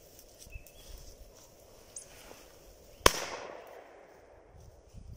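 A single shotgun shot fired at a roding woodcock about three seconds in, a sharp crack that rolls away over the next second or so.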